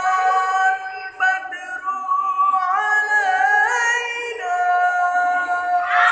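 A man singing sholawat, an Islamic devotional song, in a solo voice: long held notes with ornamented turns that step up in pitch about halfway through and drop back down later.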